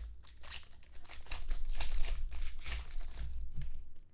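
Foil trading-card pack wrapper being torn open and crinkled by hand: a rapid, irregular crackle, loudest midway through and thinning out near the end.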